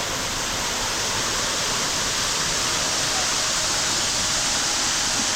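Tibumana Falls, a waterfall on Yeh Jinah Creek: a steady rush of falling water.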